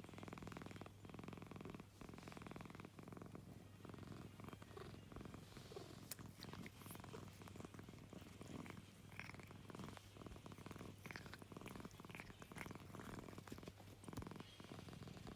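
American Shorthair cat purring steadily and quietly, the purr breaking off briefly every second or two.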